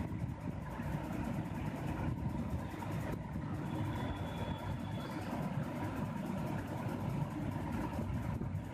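Steady low rumble of background noise with a faint steady tone through it, like a running motor or distant traffic; it does not rise or fall.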